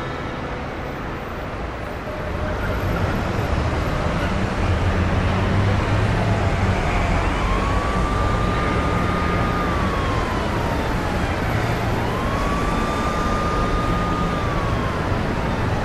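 Steady street traffic noise with a low rumble, and an emergency siren that twice rises, holds and slides back down through the second half.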